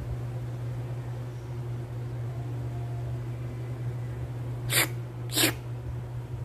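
Two short, sharp slurping noises about half a second apart near the end, a person imitating the sound of a cat licking itself, over a steady low hum.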